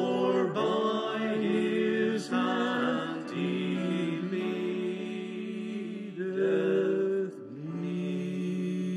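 Small vocal ensemble of four singers singing a gospel tune in close harmony, phrases of held chords, ending on a long sustained chord in the last second and a half.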